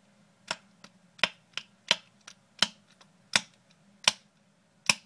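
Bump key in an American 5100-series padlock being struck again and again to bump the pins: sharp metallic taps, the main strikes about every three-quarters of a second with lighter taps between.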